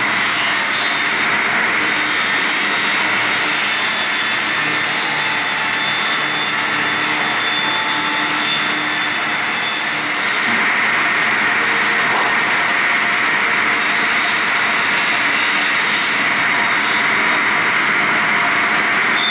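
Circular sawmill blade cutting through a log, running loud and steady without a break; the higher tones in the sound change about ten seconds in.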